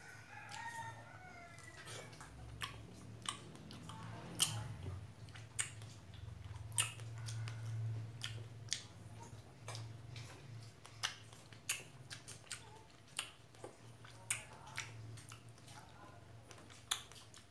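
A person chewing fresh strawberries close to the microphone, with frequent sharp, irregular wet clicks and smacks from the mouth, over a low steady hum.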